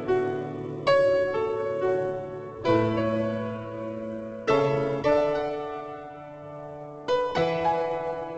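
Background music: a piano playing slow chords, each struck and left to ring out and fade.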